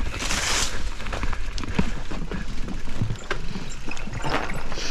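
Mountain bike descending a steep dirt trail: a brief loud hiss of tyres scrubbing in the first half-second, then the bike rattling over rough ground with scattered knocks and clicks, over a steady low rumble.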